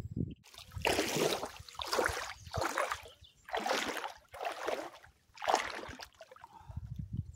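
Feet wading through shallow lake water: about five sloshing, splashing steps roughly a second apart.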